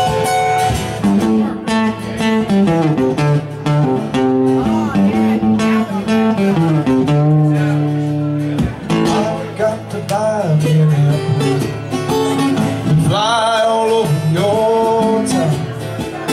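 Two acoustic guitars playing live, a picked single-note melody stepping over strummed chords, in an instrumental passage between sung verses.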